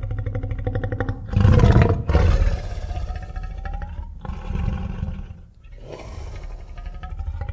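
Giant-ape monster roar sound effect: a low, rapidly pulsing growl that breaks into a loud roar about a second in, followed by two more drawn-out roars.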